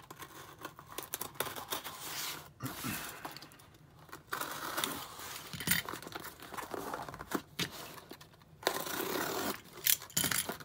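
Utility knife slitting packing tape on a small cardboard box, then the tape and flaps being pulled open: rustling, scraping and tearing of tape and cardboard with a few sharp clicks, in several spells broken by short pauses.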